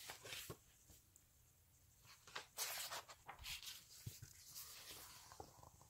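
Faint rustling and sliding of a large, stiff picture-book page being turned by hand, in short scattered bursts.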